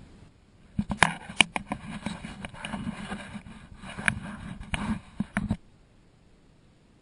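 Knocks, scrapes and splashing from a plastic sit-on-top kayak being paddled. A cluttered burst of sharp knocks starts about a second in and cuts off suddenly near the end.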